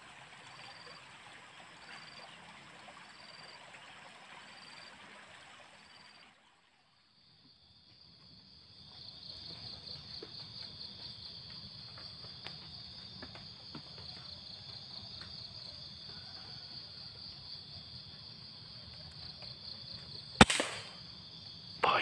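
Insects chirring in a high, steady drone, pulsing about once a second before a break about six seconds in and continuous after it. Near the end comes a single sharp shot from a scoped air rifle, the loudest sound, and about a second and a half later another sharp crack.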